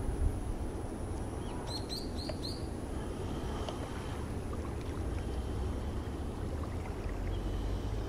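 Wind buffeting the microphone as a low, steady rumble, with a small bird giving four quick chirps about two seconds in.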